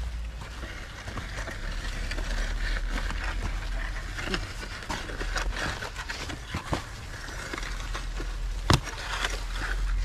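Wooden plough drawn by a pair of water buffalo, scraping and crunching through dry, cloddy soil, with scattered knocks and hoof steps over a steady low rumble. One sharp knock comes near the end.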